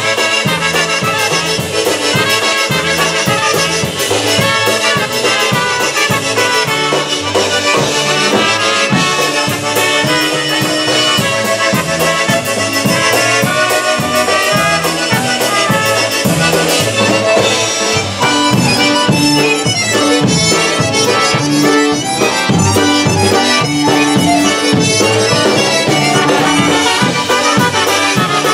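Live polka band playing an instrumental passage: a Chemnitzer concertina carries the tune over a steady bouncing bass beat, with a trumpet in the band.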